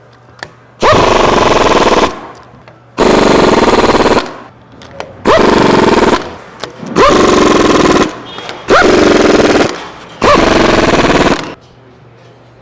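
Air impact wrench hammering six bolts down into a pump's bearing housing cover, in six bursts of about a second each with short pauses between. Each burst opens with a quick rising whine as the tool spins up.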